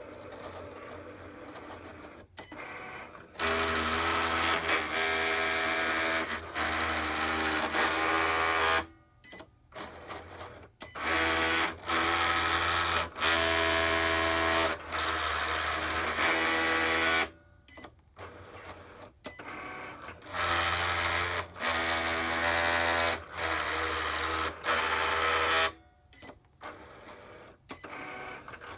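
Cricut cutting machine's motors running with a whining, grinding mechanical noise, in runs of about five seconds with short pauses between.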